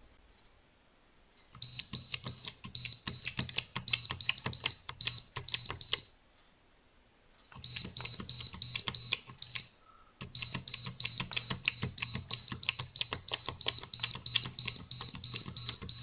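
Small piezo buzzer giving a short high beep each time a button on a 12-button matrix keypad is pressed, signalling that the microcontroller has recognised the press. Each beep comes with the click of a key. The beeps run at about three a second in three runs, with short pauses between them.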